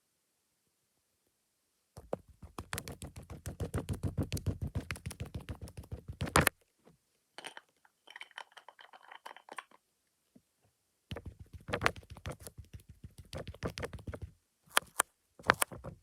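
Fast tapping of makeup tools on the camera lens. It comes as rapid runs of taps, about ten a second, with a sharp click ending the first run, a quieter scratchy stretch, then another fast run and a few sharp clicks near the end.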